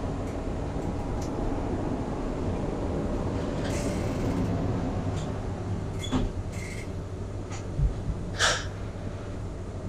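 Glass-walled passenger lift travelling, with a steady low hum and scattered clicks and rattles. A low thump and then a short hiss come near the end.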